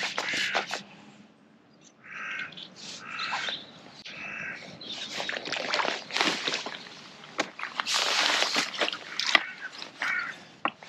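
A hooked fish thrashing and splashing at the surface of the lake as it is played to the bank and drawn into a landing net, the splashes coming in repeated bursts over the second half. Three short buzzing sounds come a couple of seconds in, before the splashing starts.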